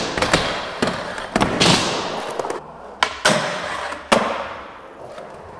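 Skateboard on titanium trucks: about eight sharp clacks and thuds from pops, truck hits and landings, each followed by the rush of wheels rolling and trucks scraping on metal, echoing in a large hall.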